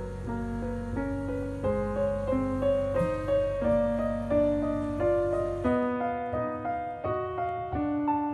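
Background piano music: a slow melody of held notes changing about every half second. A low hum under the music cuts out about two thirds of the way through.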